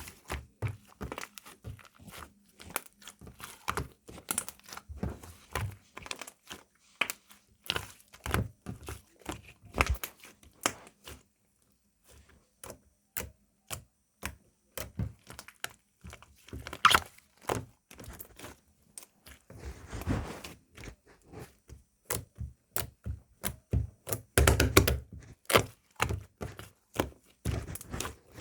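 Slime being played with by hand, giving an irregular run of small clicks and pops, with a short pause about eleven seconds in and a denser stretch near the end.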